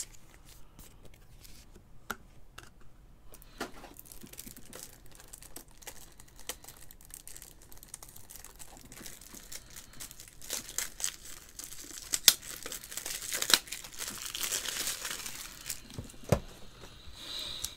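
Crinkling and rustling of clear plastic card sleeves and toploaders as trading cards are slid in and handled. Sparse small clicks at first, busier and louder in the second half.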